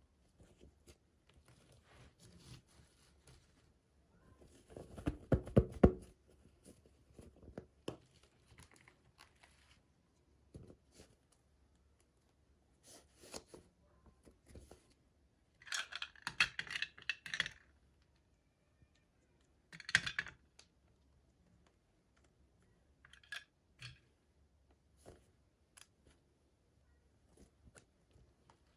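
Toy packaging and small miniatures being handled and opened by hand: scattered light clicks and crinkles with bits of tearing, a louder run of knocks about five seconds in and a longer crinkling stretch a little past the middle.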